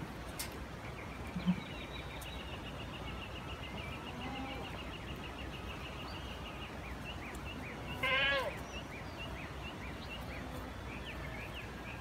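Goats bleating, with one loud, wavering bleat about eight seconds in and fainter calls around it. A steady high trill and scattered high chirps run in the background.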